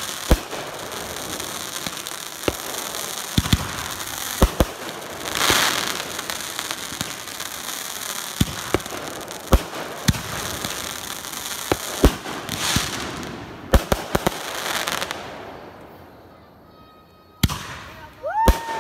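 Consumer fireworks going off: a run of sharp bangs, a few seconds apart and sometimes in quick pairs, over continuous crackling, with two louder swells of crackle. After a brief lull near the end, a bang is followed by short whistles rising and falling in pitch.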